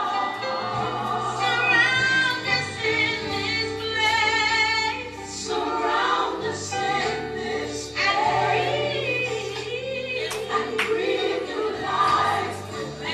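Gospel worship song playing: a choir singing with wavering held notes over long sustained bass notes.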